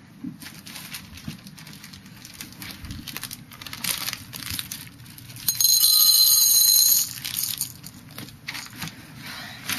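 Plastic candy wrapper crinkling and tearing as a Skittles packet is opened by hand. About five and a half seconds in, a loud, steady high-pitched tone sounds for about a second and a half, then the crinkling goes on.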